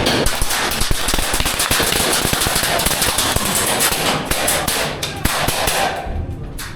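Airsoft gunfire: a dense, irregular crackle of many rapid shots and BB strikes that thins out near the end.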